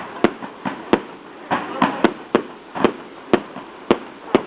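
Fireworks going off: a rapid, uneven string of sharp bangs, about two a second.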